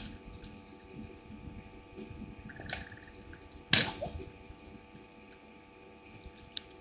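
Night bush ambience picked up by an outdoor camera microphone: a steady hum of several tones, with faint short high chirps now and then. There is a small click at the start, a click with a short buzz near three seconds, and a single sharp crack a little later, the loudest sound.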